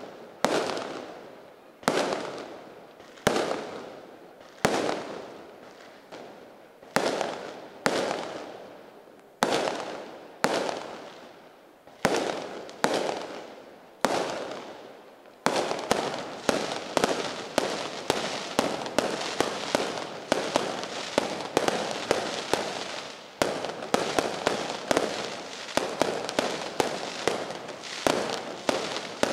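Aerial fireworks shells bursting overhead: sharp bangs about one every second and a half, each trailing off, then from about halfway a faster barrage of several bangs a second.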